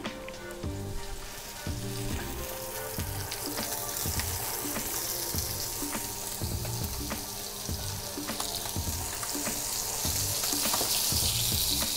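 Hake fillets frying skin-side down in oil in a pan, with butter just added and starting to melt; the sizzle builds from a few seconds in and is loudest near the end. Background music with a steady beat runs underneath.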